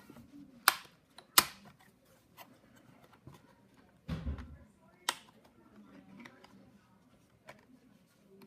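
Sharp clicks and taps of a screwdriver and small screws against a laptop's plastic base, two close together near the start and one about five seconds in, with a duller knock about four seconds in.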